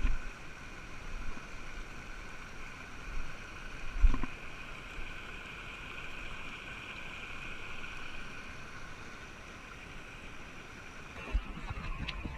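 Stream water running steadily over rocks, with a few low bumps, the loudest about four seconds in.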